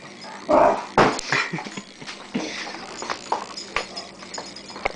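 Rhodesian ridgeback puppy yapping while it plays rough, with two loud short outbursts about half a second and a second in. Smaller yips follow, along with sharp clicks of its claws scrabbling on the tiled floor.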